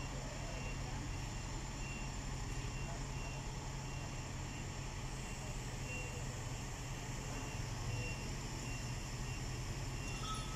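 Heavy diesel engine of a mobile crane running steadily while it holds a precast concrete bridge girder aloft. A faint, high warning beep repeats at an even rate throughout.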